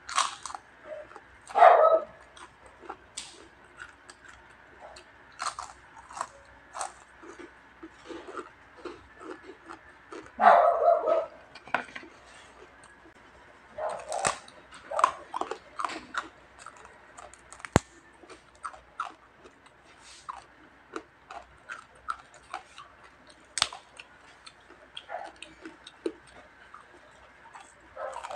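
Close-up crunching of crispy fried pork skin being bitten and chewed: many sharp crackles. A small dog's voice breaks in twice, about 2 seconds and 10 seconds in.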